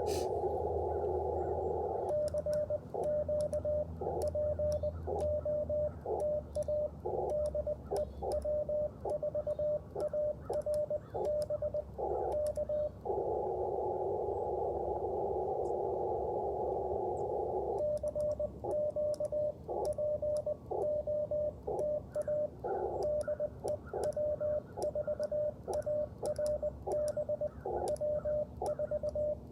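Morse code (CW) from an Icom IC-705 transceiver: a single steady tone keyed in dots and dashes. It alternates with stretches of filtered receiver hiss, at the start and for several seconds about halfway through. Faint clicks, likely from the paddle key, come along with the keying.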